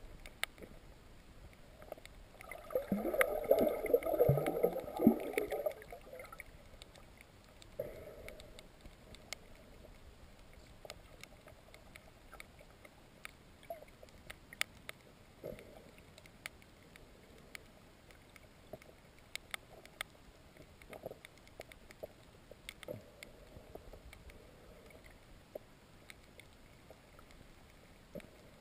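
Underwater sound picked up by a camera filming over a shallow reef: a faint background scattered with short sharp clicks, and a louder muffled gurgling burst from about three to six seconds in.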